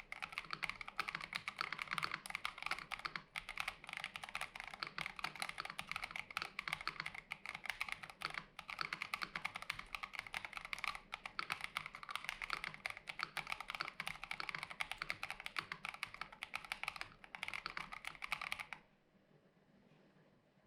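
Fast, continuous typing on an AKKO ACR64 mechanical keyboard with lubed Gazzew Boba U4T tactile switches, a tape mod and plate foam. The key presses stop suddenly near the end, leaving only faint room hiss.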